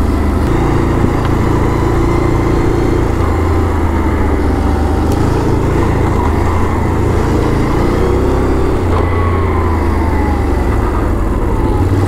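ATV engine running as the quad is ridden along a trail, its note stepping up and down a few times with the throttle.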